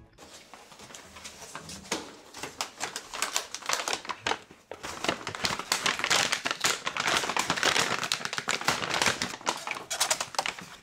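Brown paper delivery bag crinkling and rustling as it is opened and takeout containers are lifted out of it, loudest in the middle stretch and easing off near the end.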